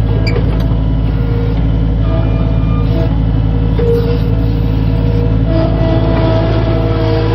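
Skid steer engine running steadily with a deep, even hum, while higher-pitched whines come and go over it.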